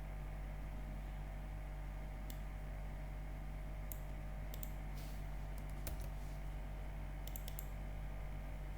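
About a dozen irregular clicks of computer keys being pressed, starting about two seconds in and bunched near the middle and near the end, over a steady low electrical hum.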